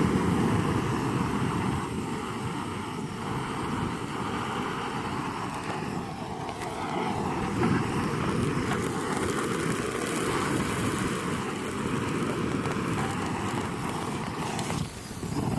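Camping stove burner running steadily under a frying pan, with a brief dip just before the end.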